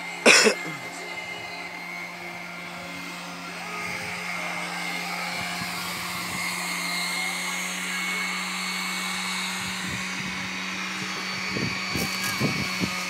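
A small electric motor whirring steadily with a constant hum, with a short loud clatter just after the start and a few sharp knocks near the end.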